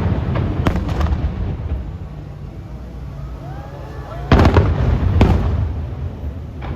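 Aerial fireworks shells bursting in loud booms: a pair of booms about a second in, then a second cluster of booms from about four and a half seconds, each followed by a rumbling echo.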